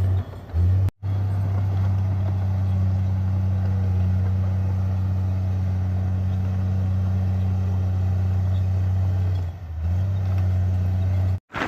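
Bulldozer's diesel engine running with a steady low drone, cut by brief dropouts to silence about a second in and near the end.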